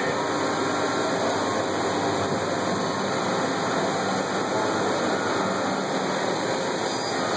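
Makino A55 horizontal machining center running, a steady mechanical hum under an even hiss.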